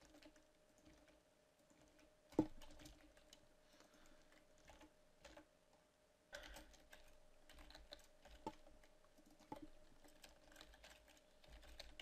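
Faint computer keyboard typing: scattered keystrokes with one sharper click about two and a half seconds in, then busier typing through the second half.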